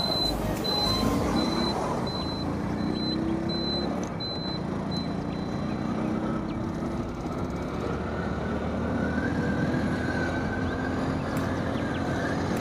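Hero Splendor motorcycle's small single-cylinder four-stroke engine running under way, its pitch rising slowly as it pulls, over steady wind and road noise. A high turn-signal beeper ticks about twice a second and stops about five seconds in.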